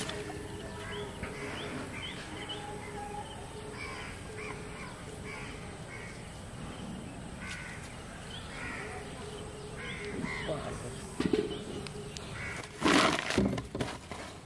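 Crows cawing repeatedly, with a faint steady hum underneath. About a second before the end comes a short burst of loud thumps and rustling, the loudest sound here.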